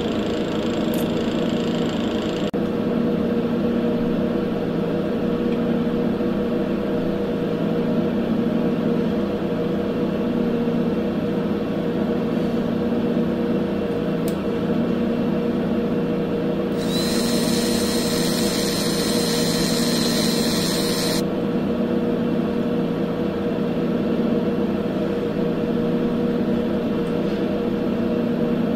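Cordless drill running for about four seconds, drilling a hole into the angle head's steel locking ring, its motor whine rising briefly as it spins up and then cutting off sharply. Under it a steady low hum runs throughout.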